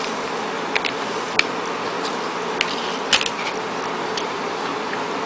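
Steady hiss with a handful of short, light clicks and taps from handling a foil powder packet and a plastic tray, the loudest a little after three seconds in.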